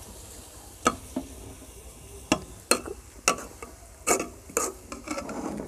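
Steel spoon stirring rice in sugar syrup in a steel pot, clinking and knocking against the pot about eight times at an irregular pace over a faint steady hiss.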